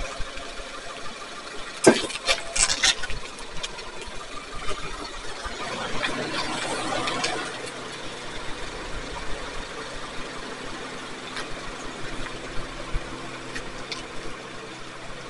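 Loaded ATX RS 500 prowler sled being pushed along the floor, its runners scraping and rumbling. A sharp clank comes about two seconds in, followed by a few lighter rattles, and the scraping turns into a steady hum from about the middle on.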